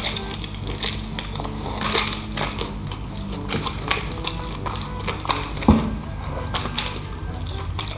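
Close-up crunching and chewing of crispy fried chicken: a run of irregular crackles from the breading being bitten and chewed.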